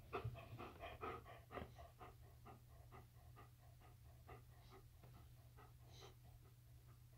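A dog panting faintly in quick, rhythmic breaths, about four or five a second. The breaths are loudest in the first two seconds and grow fainter after that.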